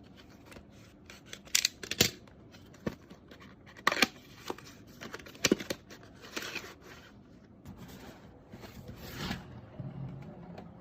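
Packaging being opened by hand: several sharp clicks among scraping and rustling noise.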